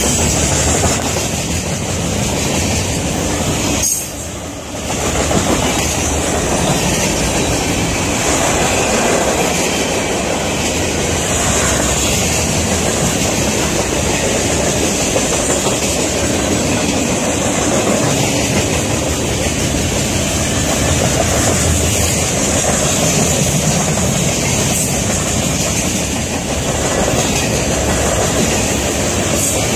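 Freight cars of a mixed freight train rolling past close by: a steady rumble and clatter of steel wheels over the rails, with a steady high-pitched wheel squeal over it. The sound briefly drops about four seconds in.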